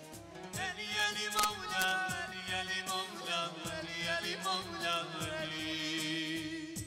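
Men's voices singing a devotional hymn into microphones over backing music with a steady drum beat. One long note is held toward the end, and the sound drops away sharply at the close.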